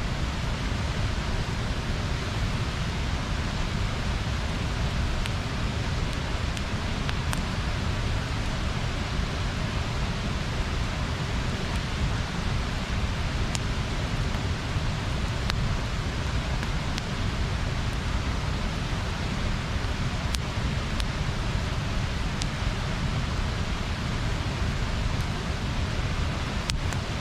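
Water rushing steadily over a small river weir, an even, unbroken roar with a few faint sharp ticks scattered through it.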